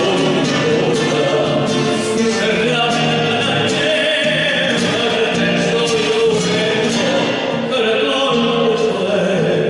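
Music: a song sung by a singer over instrumental accompaniment.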